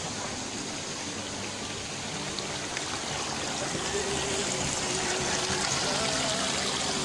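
Rocky mountain stream running, a steady rush of water over stones.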